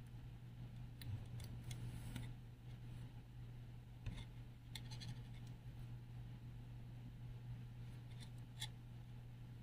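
Faint scratching and rustling of a metal sewing needle and yarn being pulled through knitted fabric while seaming, in a few short clusters: about a second in, around four to five seconds, and near the end. A steady low hum runs beneath.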